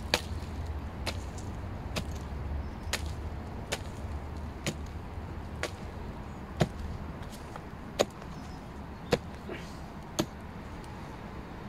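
A short-handled hoe chopping into frosty soil, about one sharp strike a second, eleven in all, over a low steady rumble.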